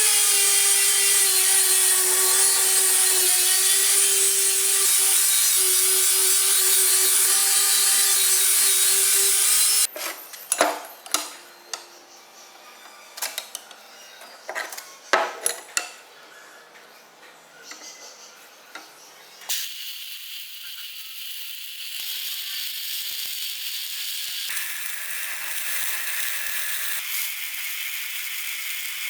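A power tool motor runs at a steady high speed for about ten seconds and then stops. Scattered metal clicks and knocks follow, and from about twenty seconds in a steady high hissing grind runs on.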